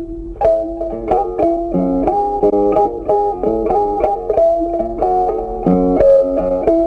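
Background music: an instrumental tune of quick, sharply struck notes with a steady rhythm.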